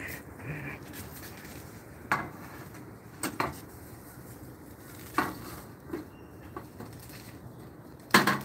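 Scattered sharp clinks and knocks at irregular intervals, about seven in all, the loudest a quick cluster near the end.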